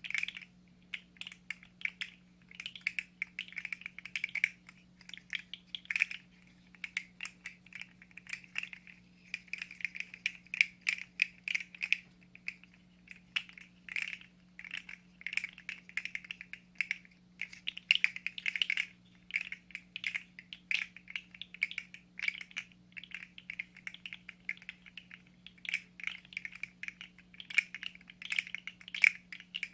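3D-printed plastic fidget slug being handled, its jointed segments clicking and rattling against each other in quick irregular runs. A faint steady low hum sits underneath.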